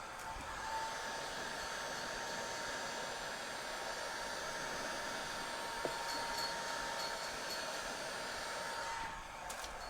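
Handheld hot-air blower running steadily, a rushing hiss with a faint whine, blowing heat on a vinyl seat cover to relax its wrinkles. It drops off about nine seconds in.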